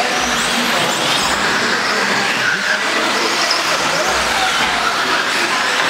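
Several modified-class electric RC buggies racing: their motors whine over a steady noise, the whines gliding up and down in pitch as the cars speed up and slow down.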